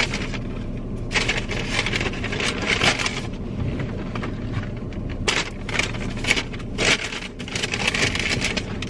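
Paper takeout bag crinkling and rustling in irregular bursts as it is opened and rummaged through for food.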